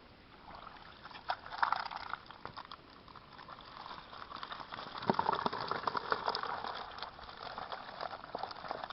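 Water splashing and trickling around a catch of live fish, in uneven bursts of small splashes, louder about two seconds in and again about five to six seconds in.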